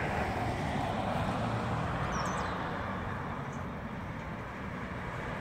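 Steady outdoor background noise, a low rumble and hiss with no distinct events, and a short high bird chirp about two seconds in.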